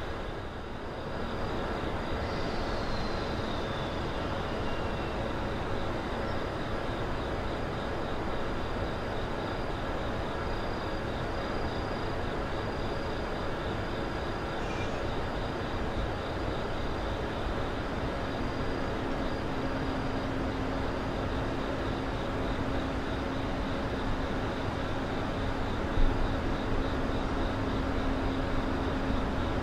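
Steady rumble of an approaching EF65 electric locomotive, with a level-crossing alarm ringing in a steady pulse. A low steady hum comes in about two-thirds of the way through as the locomotive nears, and there is a single sharp knock near the end.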